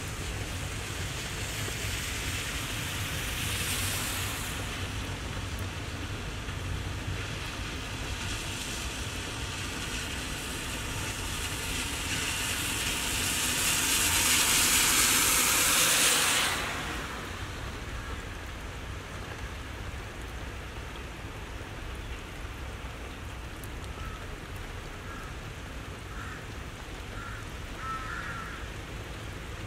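Steady rain falling over a railway yard, a constant hiss with a low rumble beneath. Midway a louder rush of hiss builds for a few seconds and then cuts off abruptly. A few faint short chirps come near the end.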